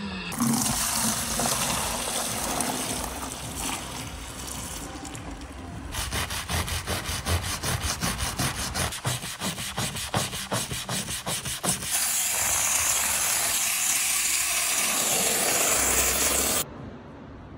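Three cleaning sounds in turn. First a rushing noise as dirty water is tipped out of a carpet extractor's recovery tank. Then a stiff brush scrubbing a foamed rubber floor mat at about five strokes a second, followed by a steam cleaner's jet hissing loudly against the mat, which cuts off suddenly near the end.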